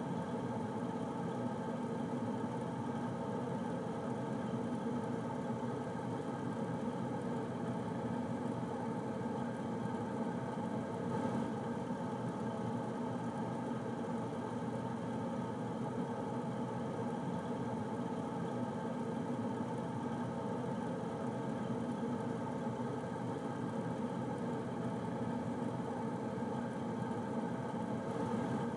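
Air conditioner running steadily: an even rushing hum with faint steady tones, unchanging throughout.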